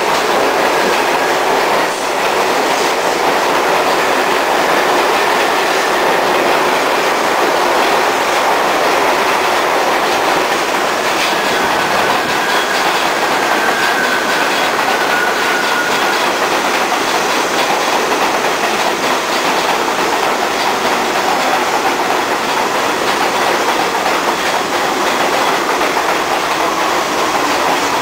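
MTA R62A subway trains running on elevated steel track: steady wheel-and-rail noise with clickety-clack over the rail joints. A faint, thin wheel squeal comes in about halfway through.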